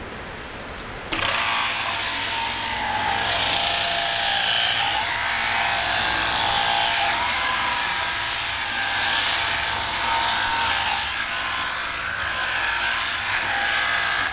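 Sheep-shearing handpiece running steadily as its comb and cutter shear through fleece, a high, hissing mechanical buzz that starts about a second in.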